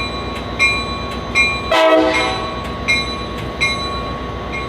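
Diesel locomotive's bell ringing about once every three-quarters of a second over a steady engine rumble, with one short horn blast about two seconds in.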